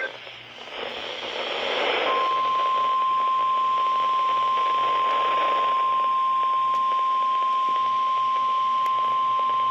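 NOAA Weather Radio 1050 Hz warning alarm tone: a single steady tone that starts about two seconds in, over radio hiss. It signals that a warning message is about to follow.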